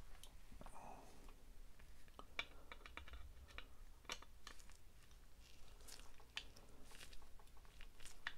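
Screwdriver turning a tight screw in a plastic diecast display base: faint, scattered small clicks and scraping ticks.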